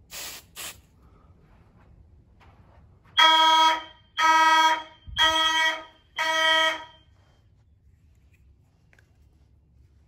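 Two short hisses of canned smoke-detector test aerosol sprayed at a ceiling smoke detector. About three seconds in, a Simplex 4903-9104 fire alarm horn sounds four loud pulses, about a second apart, then stops.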